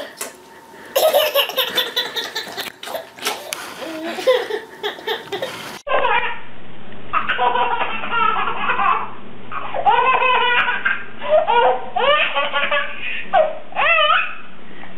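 A baby laughing hard in repeated bursts of belly laughs and giggles. About six seconds in the sound cuts abruptly to a second recording of a baby's high, squealing laughter, over a low steady hum.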